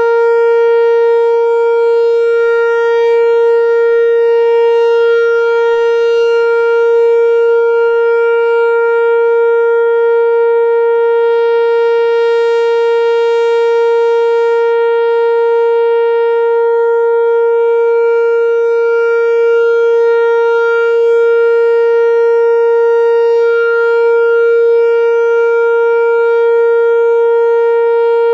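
Whelen WPS-4004 electronic outdoor warning siren sounding a steady tone that holds one pitch throughout, with a rich, buzzy stack of overtones.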